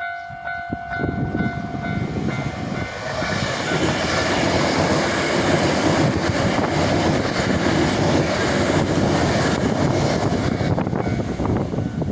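Hankyu electric train passing, its rumble building over the first few seconds and staying loud, with wheels clacking over rail joints near the end. At the start, a level-crossing warning bell rings in even pulses, then fades under the train noise.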